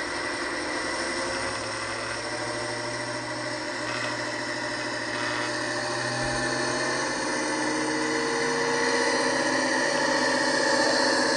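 Sound decoder in an Accurascale Class 55 Deltic model playing the diesel engine sound of the Deltic's twin Napier engines through the model's small onboard speaker, growing steadily louder as the model pulls away slowly along the track.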